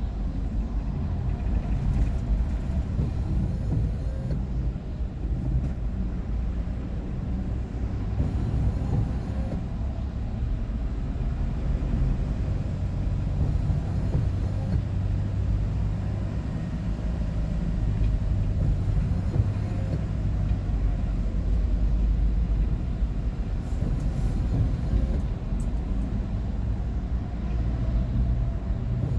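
Steady engine and road rumble heard inside a moving vehicle on the highway, strongest in the low bass, with no sudden changes.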